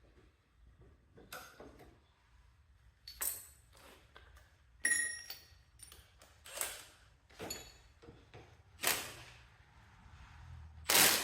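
Scattered metallic clinks and taps as hand tools work on a lawn tractor's steel steering parts, about half a dozen short strokes. A few ring briefly, and the loudest comes near the end.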